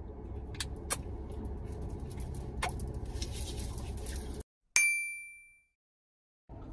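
Steady low rumble of a car's interior with a few light clicks. The sound then cuts out, and a single bright bell-like ding rings out and fades over about a second. The cabin rumble returns near the end.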